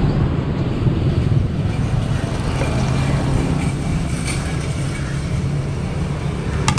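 Steady low rumble of road traffic, with a brief click near the end.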